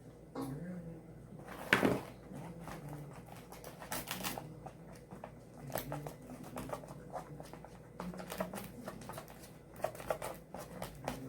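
Slime being mixed, with a dense run of small sticky clicks and crackles and one louder knock about two seconds in.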